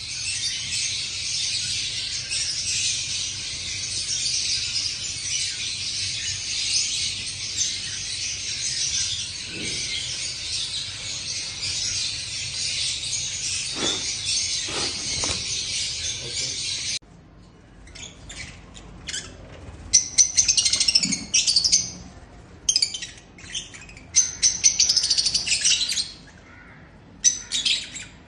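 A flock of lovebirds chattering: a dense, unbroken mass of high chirps. About two-thirds of the way through it cuts off abruptly and gives way to separate bursts of chirping with short gaps between them.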